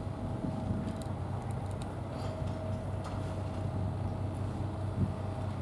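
Steady low hum of an idling engine with a thin steady tone above it, and a few faint ticks.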